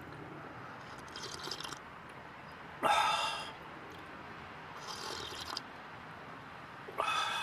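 A person eating: four short mouth sounds, the loudest about three seconds in and another near the end, over a faint steady background.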